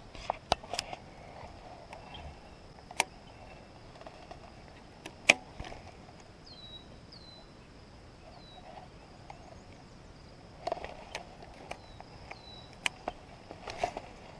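Open-air ambience: a faint steady high-pitched hum with several short falling chirps, and scattered sharp clicks and taps, the loudest about five seconds in, with two softer rustling bursts later on.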